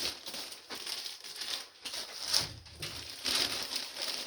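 Plastic bag crinkling and rustling in irregular bursts as it is handled and opened.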